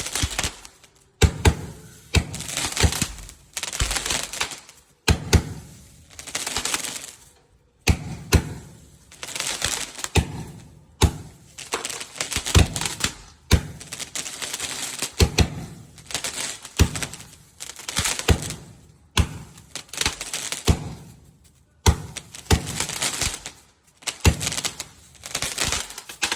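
Fireworks going off in quick succession: sharp bangs about every one to two seconds, each followed by a long crackling fizz.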